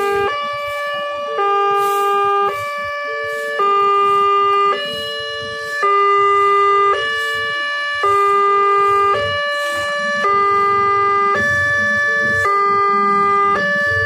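Railway level-crossing warning alarm sounding: a loud electronic two-tone chime, the pitch switching back and forth about once a second. It signals an approaching train while the barriers are lowering.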